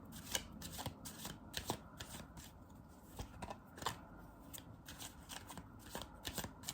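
A deck of tarot cards being shuffled by hand: quiet, irregular flicks and clicks of the cards, several a second.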